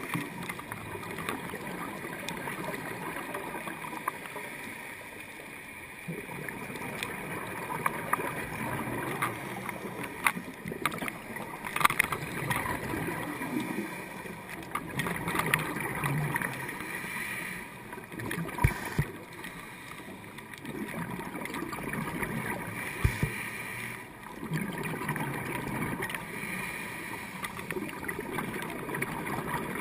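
Underwater sound of scuba diving: a diver's regulator breathing, with exhaled bubbles swelling and easing every five seconds or so, and a few sharp clicks.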